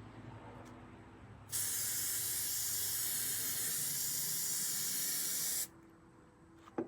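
Aerosol hairspray can spraying in one continuous hiss of about four seconds, starting about a second and a half in and cutting off abruptly near the end.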